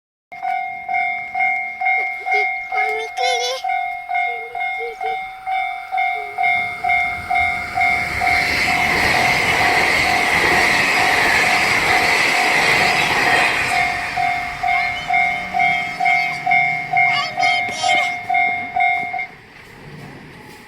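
Japanese railway level crossing's electronic warning bell ringing steadily at about two strokes a second, each stroke sounding two pitches at once, until it cuts off suddenly near the end. Midway a train passes through the crossing, its rushing rumble building up, peaking and fading under the bell.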